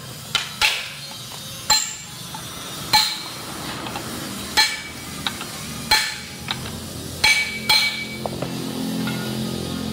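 Hammer striking the rivets that fasten the lining to a truck drum-brake shoe: about eight sharp metallic strikes, irregularly spaced, each with a short ring.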